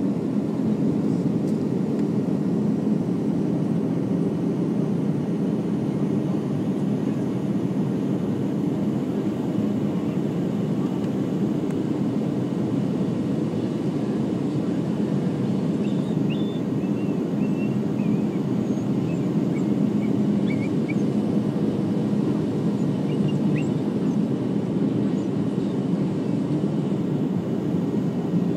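Steady, low cabin roar of a Boeing 737-800 airliner on its approach, the sound of its CFM56 engines and the airflow along the fuselage as heard inside the cabin.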